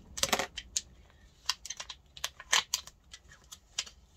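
Sheet of heat transfer vinyl crackling and crinkling as it is peeled away by hand while being weeded, a string of irregular short crackles, loudest about a quarter second in and again about two and a half seconds in.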